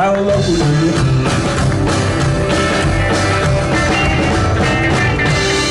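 A rock band playing live: a loud, dense instrumental passage with no singing.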